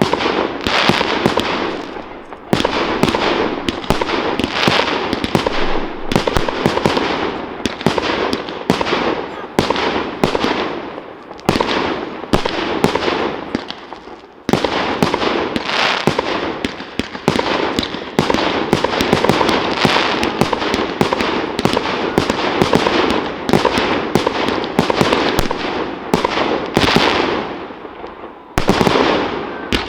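Aerial fireworks display: a dense run of sharp bangs over continuous crackling, with a brief lull before halfway and a sudden loud return.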